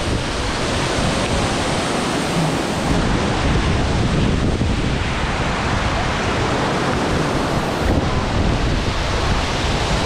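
Waterfall pouring, a steady rushing noise, with wind buffeting the microphone from about three seconds in until about eight seconds in.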